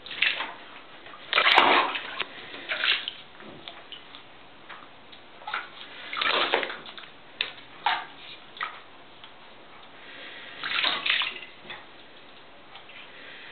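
Shallow bathwater sloshing and splashing as ferrets paddle and scramble in a bathtub. It comes in several short bursts, the loudest about a second and a half in, with small knocks between.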